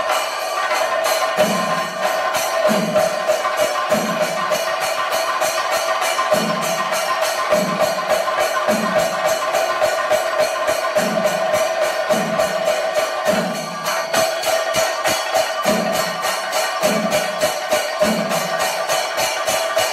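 Thayambaka ensemble of Kerala chenda drums played with sticks: fast, dense stick strokes on the drumheads with a deeper beat landing about once a second, over a bright jingling of ilathalam cymbals.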